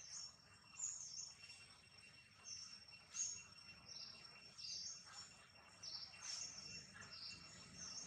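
Faint birdsong: short, high chirps repeating every half second to a second, over a thin, steady, high-pitched insect whine.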